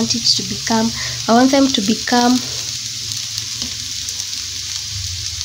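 Boiled potato pieces frying in butter in a pan, with a steady sizzle.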